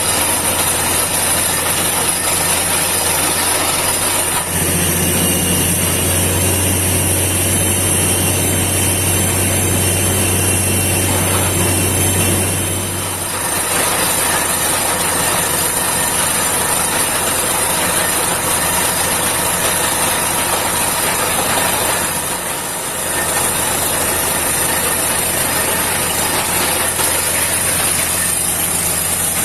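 Truck-mounted borewell drilling rig running continuously: a very loud, steady mechanical din with a deep hum. The deep hum grows stronger about four seconds in, eases about thirteen seconds in, and dips briefly a little past halfway.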